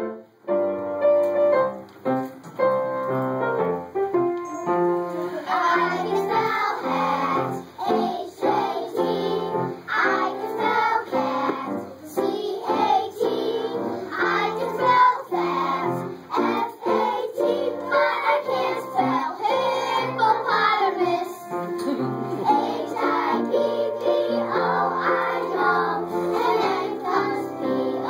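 A group of young kindergarten children singing a song together over a musical accompaniment. The accompaniment plays alone for the first few seconds before the voices come in.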